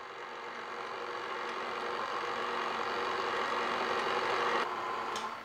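KitchenAid Classic Plus tilt-head stand mixer running on its lowest speed, the flat paddle beating buttermilk waffle batter in the steel bowl: a steady motor hum that slowly grows louder and drops away near the end.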